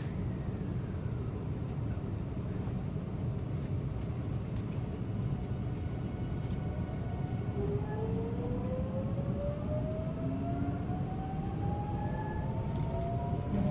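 JR Central 373 series electric train pulling away, heard inside the car: a steady rumble of running gear, and from about halfway through the Toshiba GTO-VVVF inverter's whine rising steadily in pitch as the train accelerates.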